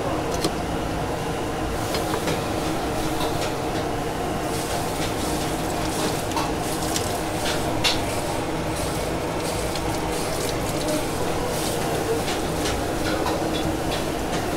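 Busy seafood-market and eatery din: a steady mix of background crowd chatter with scattered clinks and knocks of dishes and utensils.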